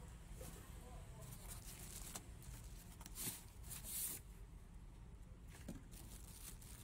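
Plastic wrapping and cardboard packaging crinkling and rustling as hands rummage through a printer box, with two louder crinkles about three and four seconds in.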